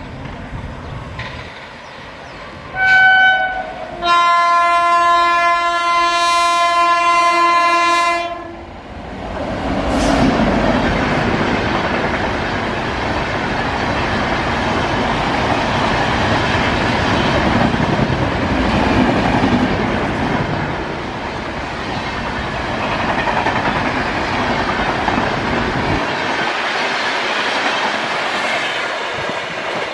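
Express train locomotive horn: a short blast, then a long steady blast of about four seconds. Then the express runs through at about 110 km/h without stopping, a loud steady rushing that eases off near the end.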